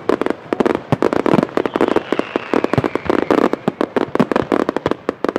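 Fireworks display: aerial shells bursting in rapid, overlapping bangs, several a second, over a continuous din.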